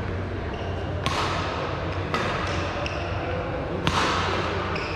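Badminton rally: sharp racket strikes on the shuttlecock about a second apart, ringing in the large sports hall, over a steady low hum.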